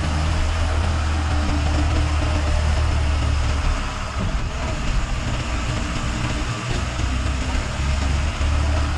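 Cab interior of a moving TNSTC diesel bus: the front engine's steady low drone under a constant hiss of tyres on the wet road. The drone weakens and turns uneven about four seconds in, then comes back strong near the end.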